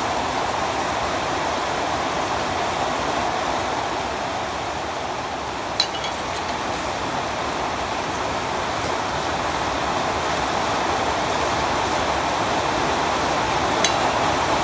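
Steady, even rushing noise like falling or running water, with two brief light clicks, one about six seconds in and one near the end.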